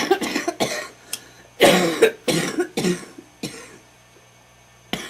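A person's wet smoker's cough in fits: three quick coughs at the start, a second run of four that tapers off from about a second and a half in, then one short cough near the end.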